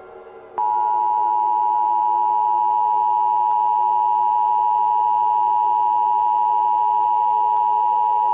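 Emergency Alert System two-tone attention signal: two steady tones near 853 Hz and 960 Hz sounding together, starting about half a second in and holding for about eight seconds.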